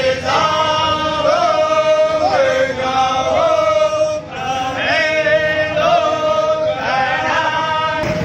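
A group of men singing a devotional chant together, in long held, wavering notes, with a short break between lines about halfway through.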